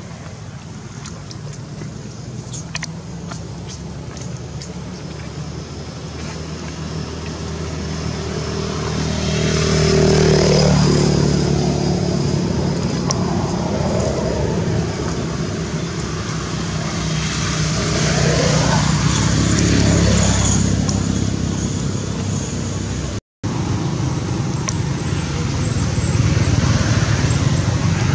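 Motor vehicles passing on a road: engine and traffic noise swelling and fading about three times, with a falling pitch as each one goes by. The sound cuts out for a moment near the end.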